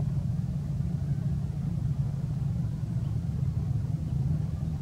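Steady low rumble with no clear calls over it.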